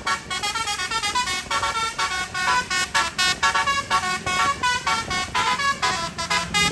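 Tour bus telolet basuri horn playing a fast melody: many short notes hopping up and down in pitch, several a second, with brief breaks between phrases.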